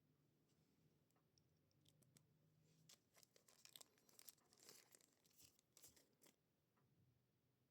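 Faint crinkling and tearing of packaging being handled, a run of small crackles from about three seconds in until about six seconds in.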